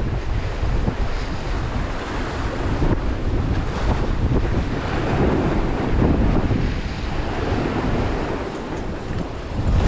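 Sea waves surging and washing, with wind buffeting the microphone as a steady low rumble.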